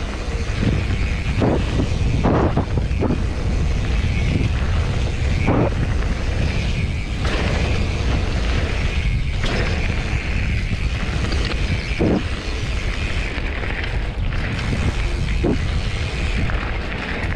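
Mountain bike descending a loose gravel trail: heavy wind buffeting on the bike-mounted camera microphone over the steady crunch and hiss of tyres rolling on gravel, with a few short knocks and rattles from the bike over bumps.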